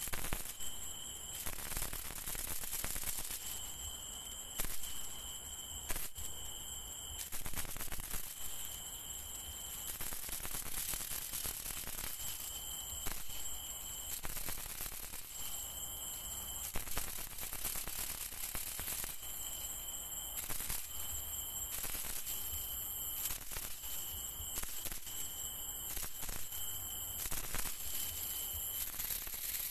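Night insects singing in high, steady trills that start and stop in spells of about a second, with scattered sharp clicks and rustles throughout.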